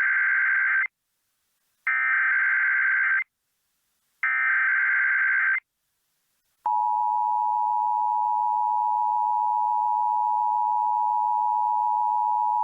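Emergency Alert System SAME header for a Required Monthly Test: three data bursts of about a second each, separated by short gaps. About six and a half seconds in, the EAS two-tone attention signal starts and holds steady.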